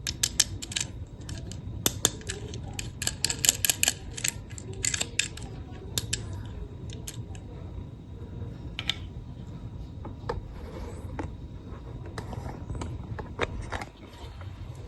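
Sharp clicks and light rattles of small plastic toy cars and their packaging being handled during unboxing. They come thick and fast for the first five seconds, then thin out to scattered single clicks.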